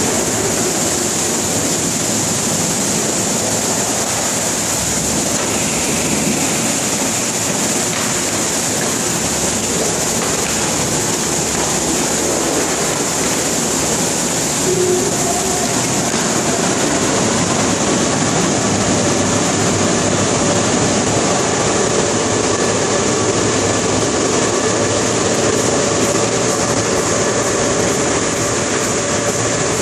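Automatic tunnel car wash running: a spinning vertical side brush and water spray make a loud, steady rushing hiss, with a faint machine hum coming in about halfway.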